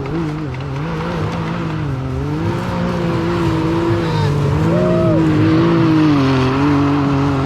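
Side-by-side UTV engine under hard load, climbing a steep snowy hill, its revs wavering up and down as the tires hunt for grip, rising twice.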